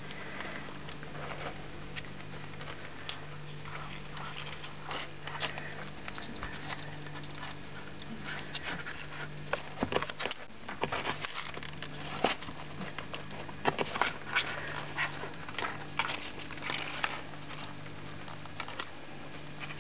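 Young kittens scrabbling around on newspaper and a small plastic tray: paws scratching and rustling, with scattered sharp clicks that grow more frequent and louder about halfway through, over a steady low hum.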